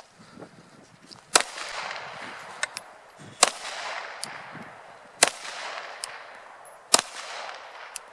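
Four pistol shots fired slowly and deliberately, about two seconds apart, each with a long fading echo. A few fainter sharp clicks sound between them.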